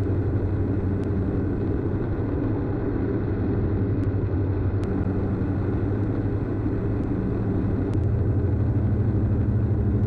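Steady drone of the Diamond DA42's twin Austro AE300 turbo-diesel engines and propellers, heard inside the cockpit in flight. The drone grows a little louder about eight seconds in.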